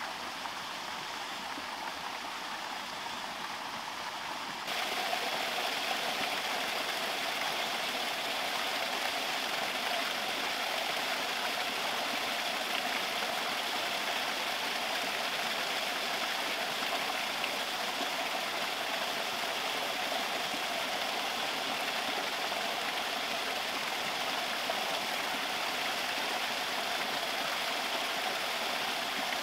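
Steady rush of running water pouring from a drain outlet at the pond's edge, stepping up louder about five seconds in and then holding steady.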